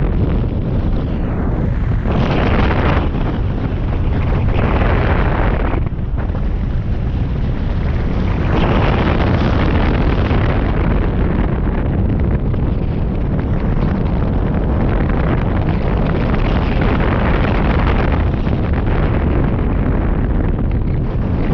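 Loud wind rushing and buffeting over the microphone of a camera mounted on a hang glider in flight, a constant low rumble that swells and eases every few seconds.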